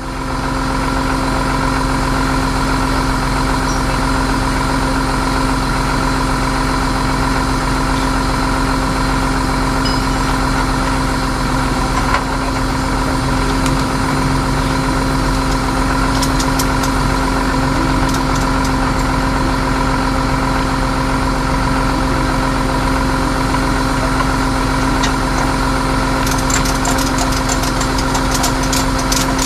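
Tow truck engine idling steadily with a constant droning hum. A few light, quick clicks come in near the end.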